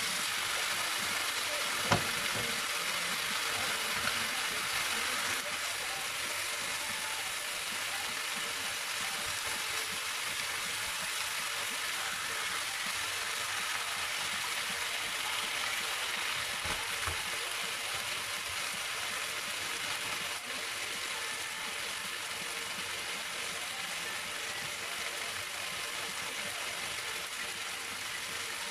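Chicken pieces frying in a pan, a steady sizzle, with a sharp knock about two seconds in.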